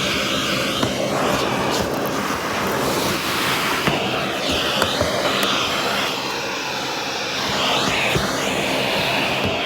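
Vacuum cleaner running steadily as its attachment works over dirty car carpet, the whine shifting in pitch as the nozzle presses and lifts, with scattered sharp clicks of debris being sucked up.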